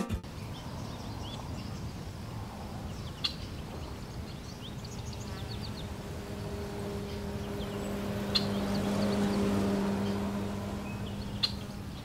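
Outdoor ambience: small birds chirping now and then, with three louder sharp chips, over a steady low hum of distant traffic that swells after about six seconds and eases off near the end.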